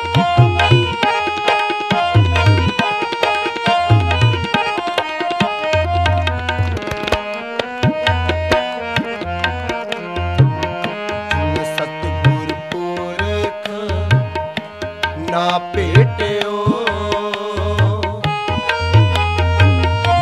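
Instrumental passage of Sikh kirtan: harmonium holding and stepping through sustained melody notes over a steady tabla rhythm, with no singing.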